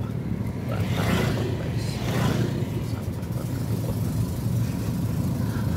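A moving vehicle's engine and road noise: a steady low rumble, with a wider hiss swelling briefly about one to two seconds in.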